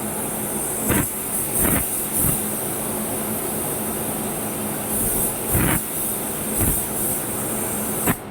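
Steady mechanical noise with a constant low hum and hiss, broken by about six short sharp knocks, then cutting off abruptly just before the end.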